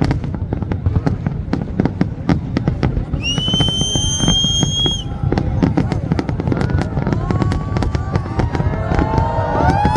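Fireworks exploding in a dense barrage of cracks and bangs. A steady high whistle sounds for about two seconds near the middle, and people call out over the bangs near the end.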